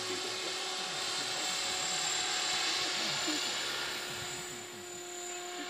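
Electric RC helicopter, a Mikado Logo 400, flying overhead: a steady whine of motor and rotor blades that grows a little louder about halfway through and fades slightly near the end.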